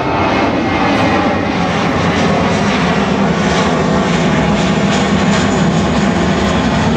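Jet airliner's engines, a loud steady rush of noise with a low hum underneath that grows stronger about halfway through as the plane comes closer.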